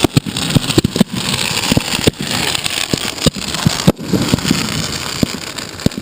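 Fireworks shells going off in quick succession at close range: many short deep thuds, several a second, over continuous crackling.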